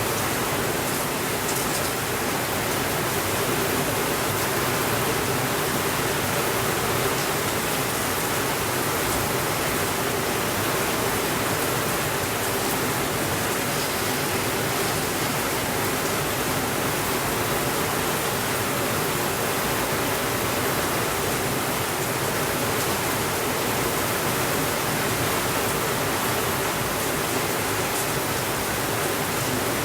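Steady rainfall, an even hiss with a few faint ticks scattered through it.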